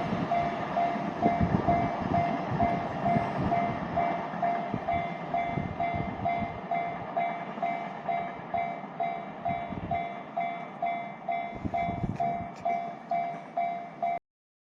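Freight train wagons clattering over a level crossing, the wheel thumps thinning out as the train goes by, while the crossing's electronic warning bell keeps ringing about twice a second. The sound cuts off suddenly near the end.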